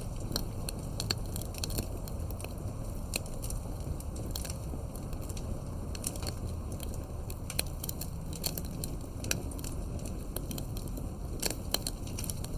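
Wood campfire crackling: irregular sharp pops and snaps, several a second, over a steady low rumble of the burning fire.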